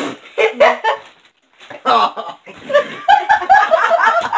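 A teenage boy laughing hard in quick, repeated high-pitched bursts, densest in the last second or so, after a brief pause.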